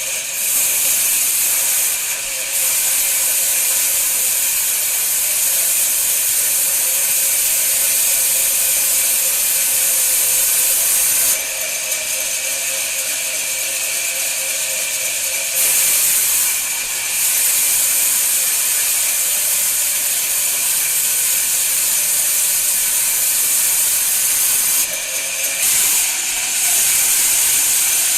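Power tool working wood: a loud, steady hiss with a faint whine, easing off briefly a few times.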